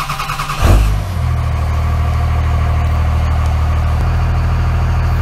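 1999 Dodge 3500's 5.9 Cummins turbo-diesel (VP44-pumped 24-valve) being started: the starter cranks briefly, the engine fires with a loud burst about a second in, then settles into a steady idle. This is the first start after the fuel system was primed by the new lift pump.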